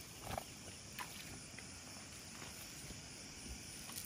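Faint steady hiss with a few soft clicks and rustles as a wet cast net is gathered up by hand.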